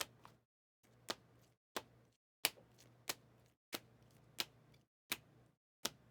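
Trading cards being handled on a table: a run of about nine sharp clicks and taps, roughly one every two-thirds of a second, with a faint low hum behind each.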